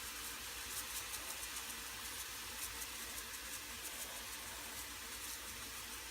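Ground chicken and onions frying in a pan: a steady sizzle with faint crackles.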